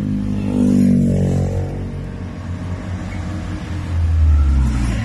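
Motor vehicles going past on the road beside the car. One engine falls in pitch about a second in, and a louder, deeper engine rumble comes near the end.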